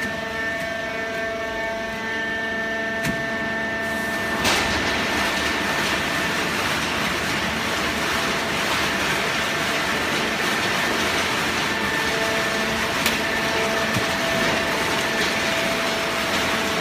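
Hydraulic cardboard baling press running: steady machine whine with several held tones, joined by a louder rushing hiss after a sharp click about four and a half seconds in.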